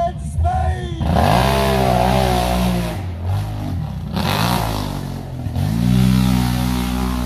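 ATV engine revving hard as the quad churns through a mud pit. The pitch climbs about a second in and holds, drops back, then climbs and holds again in the second half.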